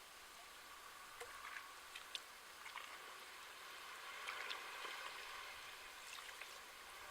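Small sea waves washing at the shore: a faint, steady hiss of water with scattered little fizzing and dripping ticks, swelling gently about four seconds in.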